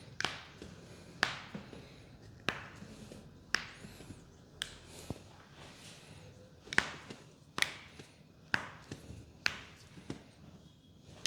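Short, sharp taps or clicks repeating roughly once a second, about ten in all, made by a chiropractor's repeated manual thrusts during a back adjustment.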